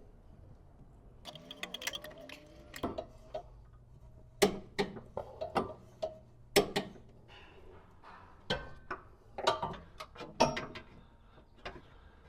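Irregular sharp metallic clicks and ticks of hand tools tightening the rear upper control arm's top bolts, as a torque wrench and ratchet bring them to 43 ft-lb. Several louder single clicks stand out among the ticking.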